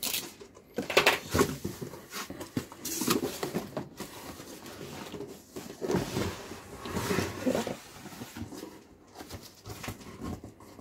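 Cardboard boxes being opened and handled: flaps scraping and rustling, with irregular knocks as the boxes are moved.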